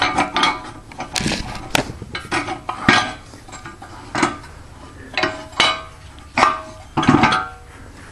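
Black iron pipe legs of a homemade welded steel rocket stove clinking and knocking against the steel body and the concrete floor as the stove is set up on them: about eight sharp metallic knocks, some ringing briefly.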